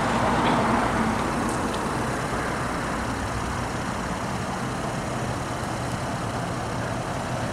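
Steady motor-vehicle noise from the street: an engine running with a low hum under road traffic.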